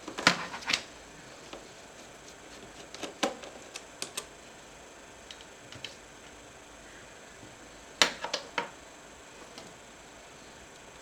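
Sharp clicks and light knocks of laptop parts and small tools being handled during disassembly: a cluster of clicks right at the start, a few more around three to four seconds in, and another cluster about eight seconds in.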